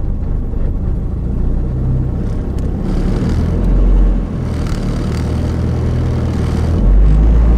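Dodge Neon SRT-4's turbocharged four-cylinder engine running and given light throttle, swelling in level twice, about midway and near the end. The scratching from the rebuilt Precision turbo that the owner is listening for does not stand out.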